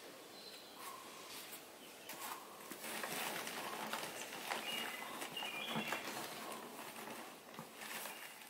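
Outdoor ambience: a few short bird chirps over a steady hiss, with scattered rustles and clicks that grow busier about three seconds in.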